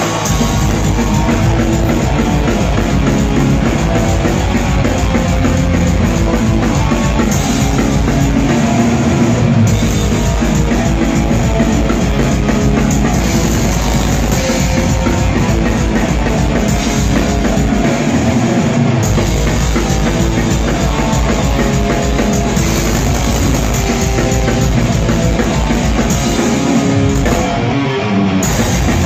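Live rock band playing loudly: electric guitar and drum kit.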